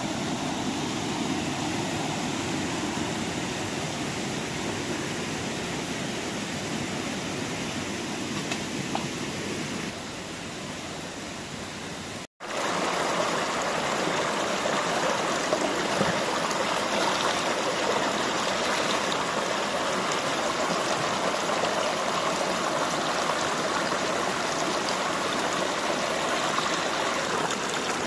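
Shallow stream running over rocks, a steady rush of water. It drops out for an instant about twelve seconds in and comes back louder.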